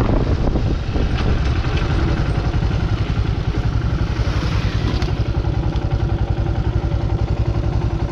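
Royal Enfield Himalayan 411's single-cylinder engine running with a rapid, even pulse that settles into a steady rhythm after about two seconds.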